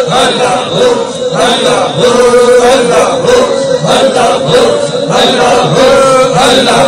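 Men's voices chanting a devotional refrain over and over through a microphone, with long held notes and no break.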